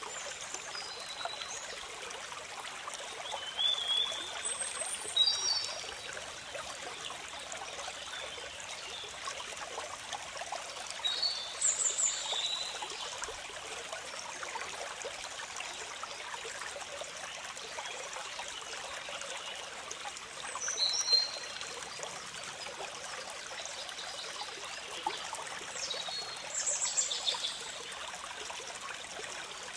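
Steady trickle and rush of a small rocky stream, with short high bird chirps coming in a few times: around 4 to 6 seconds in, around 11 to 12 seconds, around 21 seconds and near the end.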